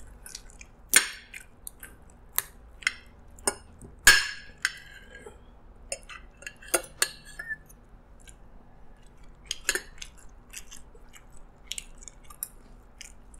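Metal spoon and fork clinking and scraping on a ceramic plate while fried chicken is pulled off the bone: a string of sharp clinks, the loudest about a second in and about four seconds in.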